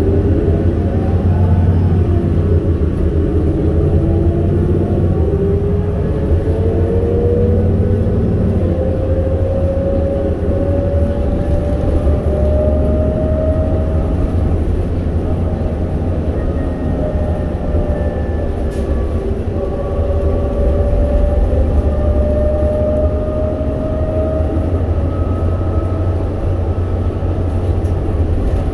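Interior ride noise of a New Flyer C40LFR CNG transit bus under way: a steady low engine rumble under a whine that climbs in pitch for about a dozen seconds, drops, then climbs again as the bus accelerates.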